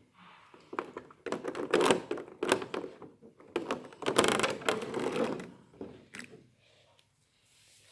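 Irregular clicking, clattering and rustling of a toy figure's plastic and cardboard packaging being handled, in uneven clusters that die down near the end.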